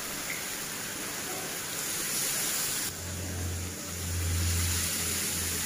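Chicken and potato curry in a karahi hissing and sizzling steadily as the water just added heats, stirred with a steel spoon. A low steady hum comes in about three seconds in.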